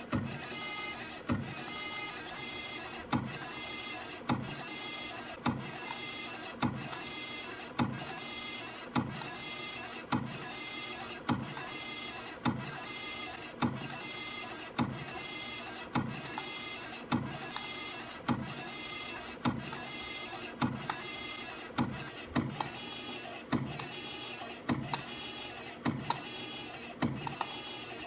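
CNC spring coiling machine forming compression springs from 0.5 mm wire: steady servo whine from wire feeding and coiling, broken by a sharp click about once a second as each finished spring is cut off.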